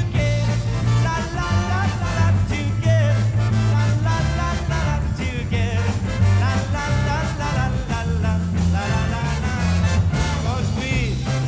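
Upbeat band music without vocals: an instrumental passage of a 1960s pop song, with melodic lead lines over a steady bass line.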